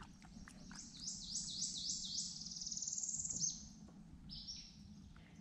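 A songbird singing: several quick, high downslurred notes running into a fast trill, then one short note about a second later.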